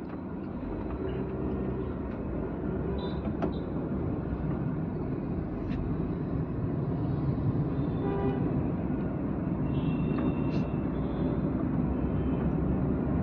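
Engine and road noise inside a small car's cabin, building steadily as the car pulls away from a green light and gathers speed. Brief toots of vehicle horns from the surrounding traffic come in the second half.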